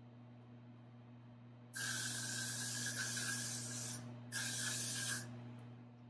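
Aerosol can of Got2b Glued hair spray hissing in two bursts: a long one of about two seconds starting near two seconds in, then, after a short pause, a shorter one of about a second. A thin whistle runs through the hiss.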